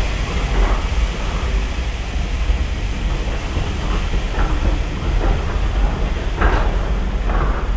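Railway passenger carriages rolling past alongside a platform: a steady low rumble of wheels on rail. Brief sharper noises come now and then, the strongest about six and a half seconds in.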